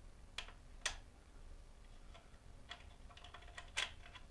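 A screw being hand-tightened into a T-nut on an aluminium frame: irregular small metallic clicks and ticks, with three sharper clicks, one about half a second in, one near a second in and one near the end.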